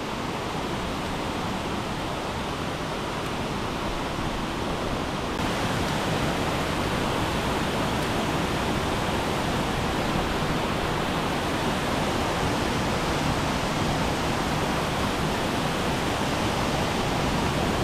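Water pouring over a dam's spillway: a steady rush of falling water that gets a little louder about five seconds in.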